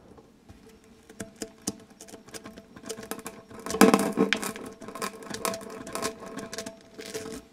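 Brass nozzle of a tyre plug gun being pushed through a puncture in a tubeless tyre, rubbing and clicking against the rubber in a series of sharp clicks, loudest in a dense burst about four seconds in.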